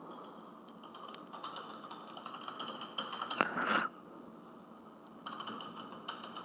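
Faint scattered clicks over a steady high-pitched hum, with a brief louder rustle about three and a half seconds in.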